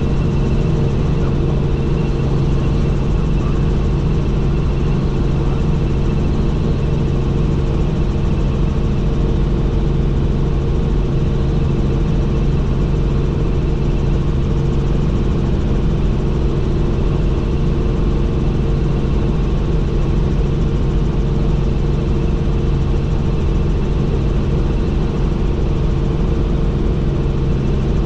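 Helicopter in flight: the engine and rotors give a steady, unchanging drone with several held low tones.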